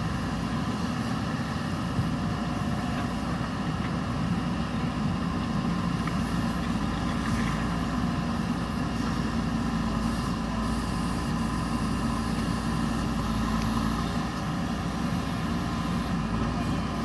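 JCB backhoe loader's diesel engine running steadily, a constant drone that does not change in pitch or level.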